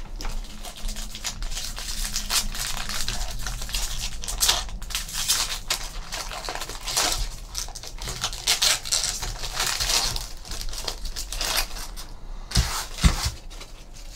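Trading card packs being opened and handled: foil pack wrappers crinkling and tearing and cards being shuffled, in a dense, continuous rustle. Near the end, two sharp knocks half a second apart.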